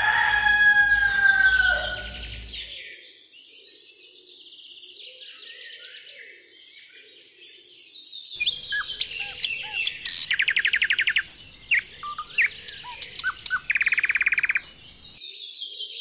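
Birds singing: a loud falling call in the first two seconds, then scattered high chirps, and later two fast trills, each about a second long.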